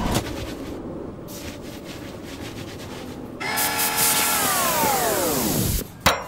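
Loud hissing jet from a hose wand on a wheeled stainless-steel tank, with a whine running through it. It starts suddenly a little past the halfway point; the whine then falls steadily in pitch until it cuts off abruptly, followed by a sharp knock.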